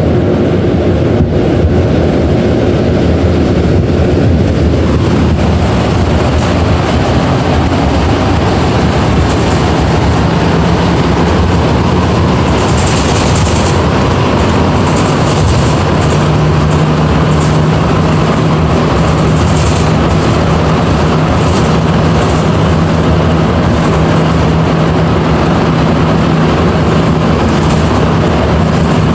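Rubber-tyred Montreal metro train picking up speed and running through the tunnel: a loud, steady rumble and rush inside the car, with a low steady hum joining about ten seconds in.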